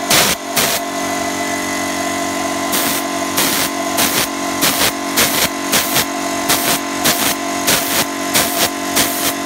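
Gravity-feed HVLP spray gun hissing as it sprays paint, over a steady motor hum from the air supply. The hiss swells in regular pulses, a little over half a second apart.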